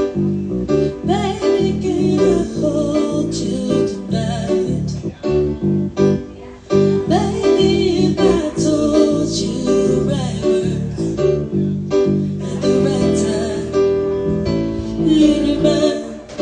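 A woman singing a slow pop-folk ballad live, accompanied by keyboard.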